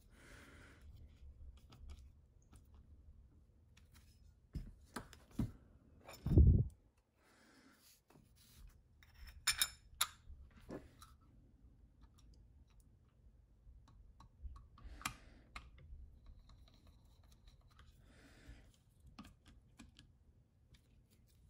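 Handling of a steel CZ 97B pistol frame with its grips on a rubber bench mat: scattered light clicks and knocks, with one louder dull thump about six seconds in.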